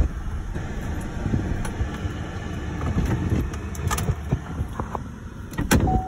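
Car driving over a dirt lot, heard from inside the cabin: a steady low engine and tyre rumble with scattered small clicks and knocks. There is a louder knock near the end.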